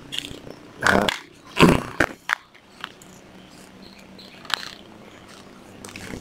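Plastic cordless-tool battery packs being handled and set down on a tile floor: a few separate clunks and clicks, the loudest two about a second and a second and a half in.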